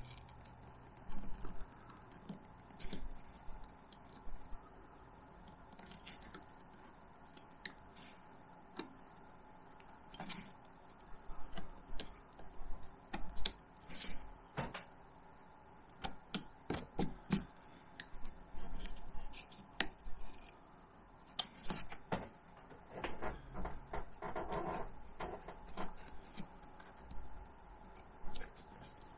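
Small hand carving tools cutting cottonwood bark: irregular short clicks and scraping cuts, coming in quicker, louder clusters about halfway through.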